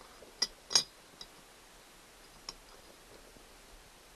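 Four sharp metal clicks from a camper door lock mechanism being taken apart by hand. The loudest is under a second in, and the last, fainter one comes about two and a half seconds in.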